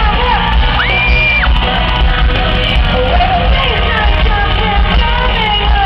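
Live pop music played loud through an arena sound system, with heavy bass, women singing, and the crowd shouting and screaming; one high held scream about a second in.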